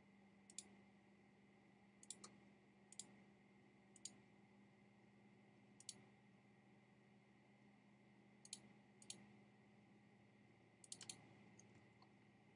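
Faint computer mouse clicks, about a dozen at irregular intervals and some in quick pairs, as the points of a polygonal lasso selection are placed. A faint steady hum runs underneath.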